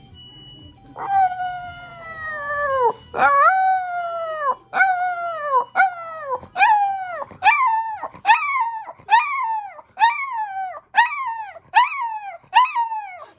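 A small dog howling in a run of falling howls: long drawn-out ones at first, then shorter ones coming faster, about one and a half a second toward the end. The howling is set off by an ambulance siren.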